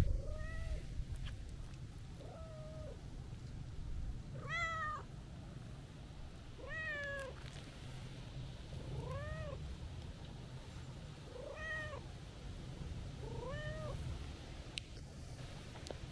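Calico cat meowing seven times, about every two seconds, each meow rising and then falling in pitch, in a happy-sounding greeting.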